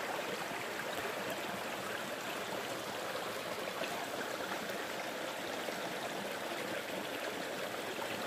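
Mountain creek flowing steadily over rocks, a continuous rushing and babbling of water.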